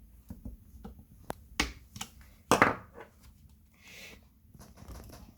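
Small clicks, taps and scrapes of hand tools and parts being handled while prying the glued frame edge off an iPhone 7 display, with one louder scrape about halfway through.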